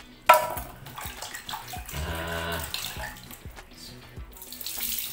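Warm water poured from a steel pot into a plastic dipper, then poured out of the dipper with splashing. There is a sharp knock about a third of a second in.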